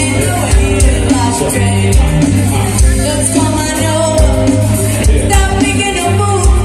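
Live band playing an upbeat song with a singer, drums and bass keeping a steady beat, heard in a large room.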